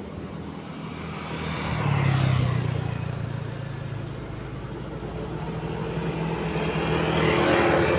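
Motor scooters passing on the road, the engine and tyre sound swelling and fading about two seconds in, then building again toward the end as more approach.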